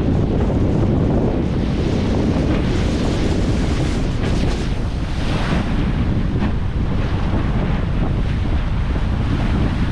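Strong wind buffeting the microphone over the rush of big ocean waves, with a louder wash of water about five seconds in.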